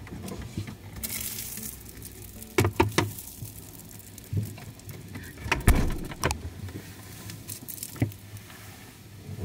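Refrigerator being loaded and handled: a series of irregular knocks and clinks of containers and door-shelf items.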